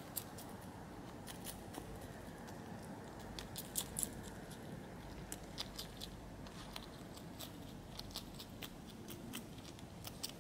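European hedgehog chewing mealworms: irregular, sharp crunching clicks, the loudest a couple of times about four seconds in, over a steady low hiss.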